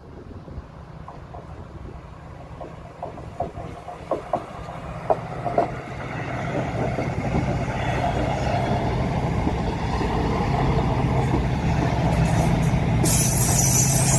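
A TransPennine Express train of Mark 5A coaches passing slowly, pushed by a Class 68 diesel locomotive at the rear. Its wheels click several times over the track about four to six seconds in, and the locomotive's low engine hum grows louder as the train goes by, with a hiss coming in near the end.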